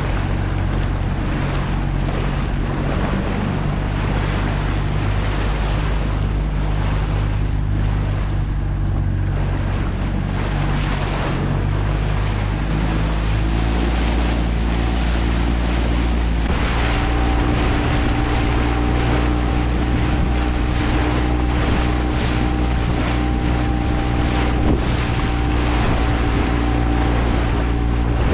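A small motorboat's engine running steadily under way, with water rushing and splashing at the hull and wind buffeting the microphone. About halfway through the engine note shifts and picks up a higher steady tone.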